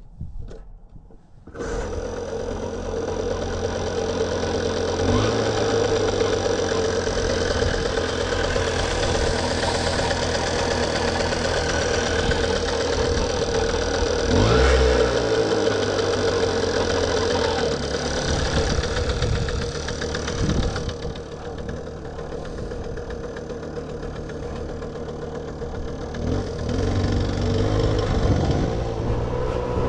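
A 1978 Puch Sport MK II moped's 50cc two-stroke engine comes up sharply under throttle about one and a half seconds in and runs under way, its pitch shifting with the throttle. It eases off about two-thirds of the way through and picks up again near the end.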